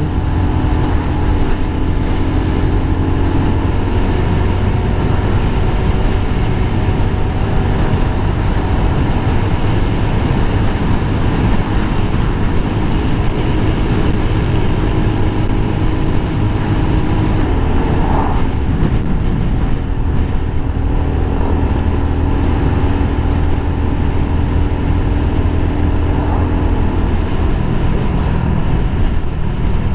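Motorcycle running at a steady cruising speed, its engine hum under a constant heavy rush of wind and road noise.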